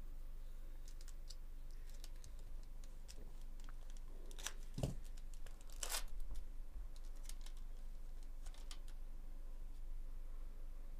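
A foil trading-card pack (2024 Bowman Chrome) is torn open by hand, its wrapper crinkling and crackling, with the loudest rips about halfway through.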